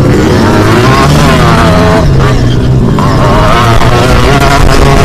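Two-stroke motocross bike engine revving hard close to the camera, its pitch rising and falling with the throttle, dipping briefly about two seconds in and climbing again.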